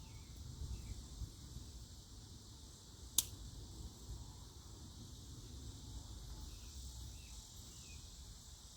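Steady high chirring of crickets and other insects, with a faint low rumble and one sharp click about three seconds in.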